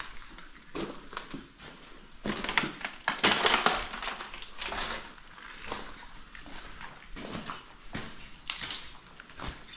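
Footsteps crunching over debris: irregular crunches and crackles, heaviest a couple of seconds in, then lighter ones.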